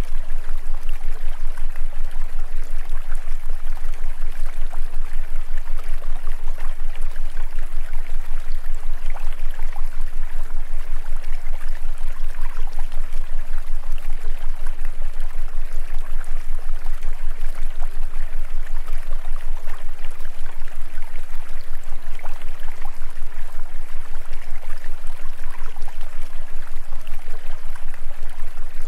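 Subliminal audio track: a steady rushing noise like running water over a constant low hum, pulsing evenly in loudness several times a second.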